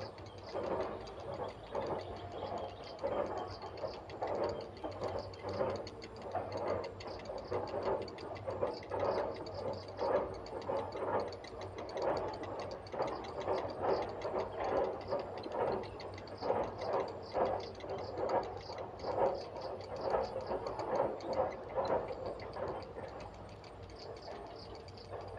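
Grey heron chicks giving repeated begging calls, a steady run of short clucking notes about two to three a second.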